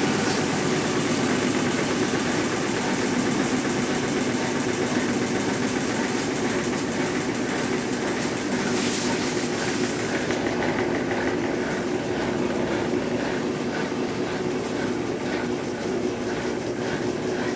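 Consul Facilite 10 kg washing machine running through its rinse and spin, a steady mechanical noise. About ten seconds in, an even rhythmic clatter of a couple of beats a second sets in.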